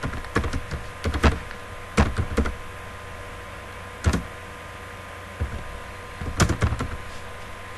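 Computer keyboard keys typed in short irregular bursts of clicks, with pauses between words, over a steady electrical hum.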